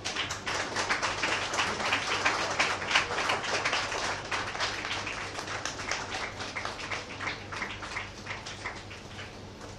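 Audience applauding: a dense patter of many hand claps that starts suddenly, is fullest in the first few seconds and slowly dies away toward the end.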